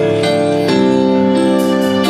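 Instrumental stretch of an idol-pop song: held keyboard chords, changing once under a second in.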